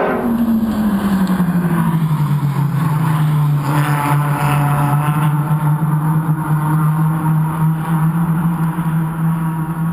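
Suzuki Swift race car engines running on the circuit: the note drops in pitch over the first second or so, then holds a steady drone.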